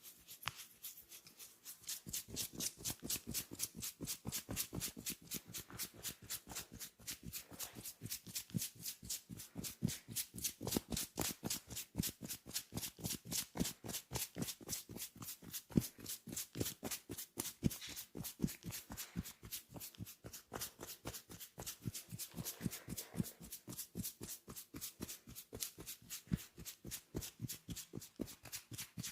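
Rapid, rhythmic tapping massage: hands striking the body in quick succession, about five strokes a second, growing louder about two seconds in.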